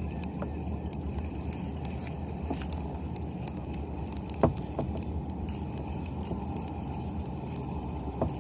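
Steady low rumble of wind and water around a kayak, with a few scattered light clicks and knocks of gear, the sharpest about four and a half seconds in.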